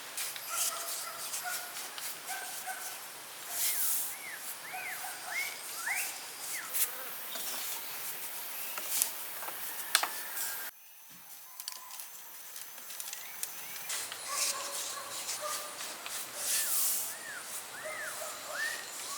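Puppies whimpering in short rising-and-falling whines, several in a row, over scattered clicks and scratchy noises. The sound drops away abruptly a little past halfway, then the whimpering starts up again.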